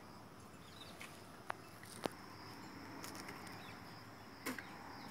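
Faint steady high-pitched insect drone, with a few short sharp clicks about one and a half, two and four and a half seconds in.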